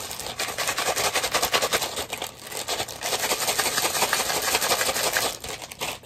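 A plastic-wrapped bag of microwave pork rinds being shaken hard, the dry rind pieces inside rattling and the wrapper crinkling in a fast, continuous clatter that stops a little after five seconds in.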